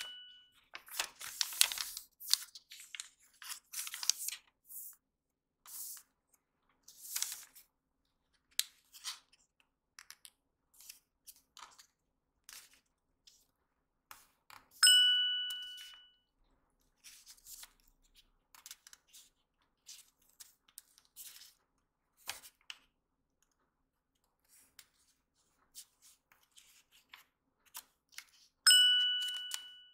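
Origami paper crinkling and crackling in short bursts as it is creased and folded by hand. A bell-like chime rings twice, about halfway through and near the end, each time fading over about a second.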